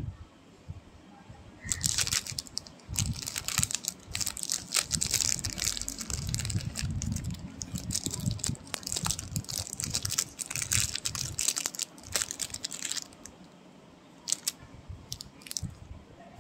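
Thin clear plastic wrapping crinkling and crackling as it is handled and unwrapped by hand, a dense run of crackles lasting about eleven seconds, then a few separate crackles near the end.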